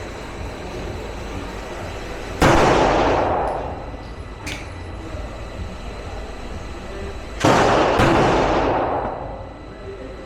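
Three 9mm Glock pistol shots: one about two and a half seconds in, then two about half a second apart later on, each followed by a long echoing tail.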